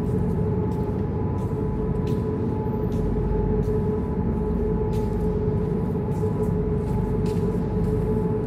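Machinery running steadily: a constant hum with a steady tone over a low rumble, with a few faint clicks.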